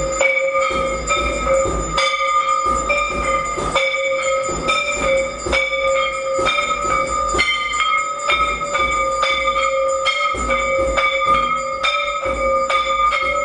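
Temple bells struck rapidly and over and over for the aarti. Their ringing overlaps into a continuous metallic clangour with steady ringing tones underneath.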